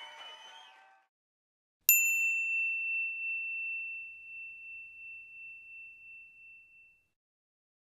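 A single bright bell-like chime, struck once about two seconds in and ringing out for about five seconds with a slowly wavering decay, as a logo sting.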